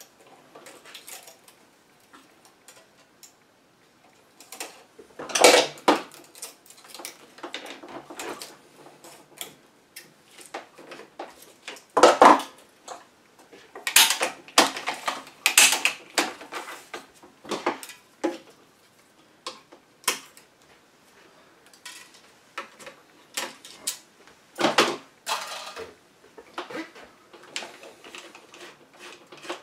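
Irregular clicks, taps and metallic clacks of hand work at a tennis racquet stringing machine, its clamps and tools handled while the string is finished off, with a few much louder clacks scattered through.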